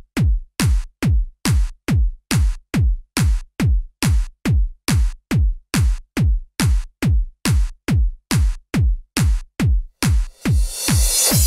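Electronic dance music as background: a steady thudding drum-machine kick, about two beats a second. A bright hissing swell comes in about ten seconds in.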